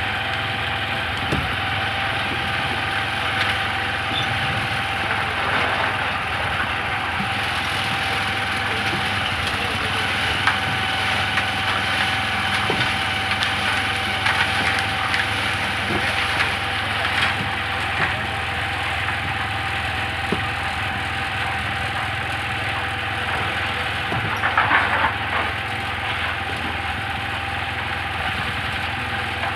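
Portable drum concrete mixer's engine running steadily, with scattered knocks and a louder brief clatter near the end as material is worked.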